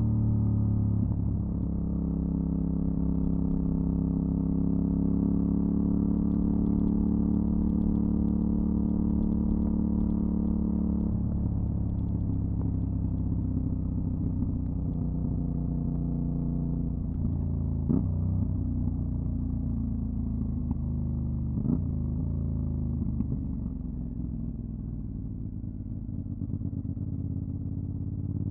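Aprilia Dorsoduro 750's V-twin engine running through a LeoVince SBK aftermarket exhaust while riding. The engine note holds steady, changes abruptly about 11 seconds in, has two short knocks around 18 and 22 seconds, drops lower and quieter in the last few seconds, and begins to rise again at the very end.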